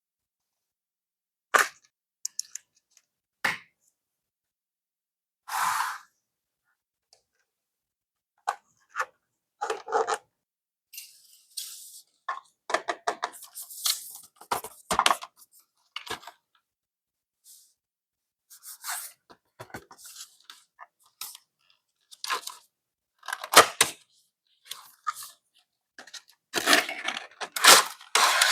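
Close-up handling of packaging and art-kit items: short crinkles, tears and taps in separate bursts with silence between them, sparse at first and coming thicker after about ten seconds, loudest near the end.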